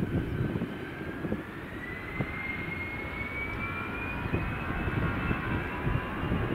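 Airbus A321-112's CFM56 turbofans whining as they spool up, the whine rising steadily in pitch for several seconds, over a low engine rumble with occasional low thumps.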